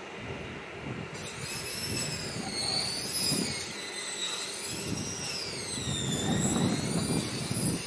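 Several high squealing tones that waver slowly up and down in pitch, starting about a second in, over a low rumble that grows louder toward the end.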